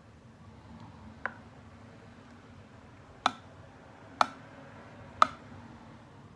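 A spoon knocking against a plastic tub while stirring and lifting slime: four sharp clicks, one about a second in, then three about a second apart.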